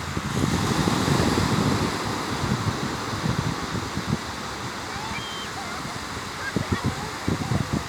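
Ocean waves washing onto the shore, a surge of surf swelling about a second in and then easing, with wind buffeting the microphone.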